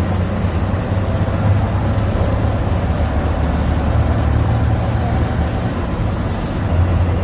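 MWM MaxxForce 7.12 TCE inline six-cylinder turbodiesel of an Agrale MA 17.0 bus running with a steady low drone. It eases slightly about six seconds in and picks up again near the end.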